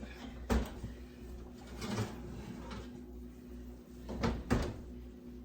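Kitchen handling noises: a few short clunks and knocks, two of them close together near the end, over a steady low hum.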